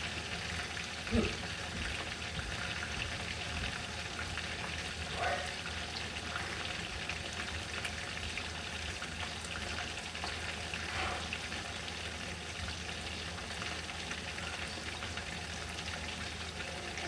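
Food frying in a pan, a steady sizzle, with a single knock about a second in.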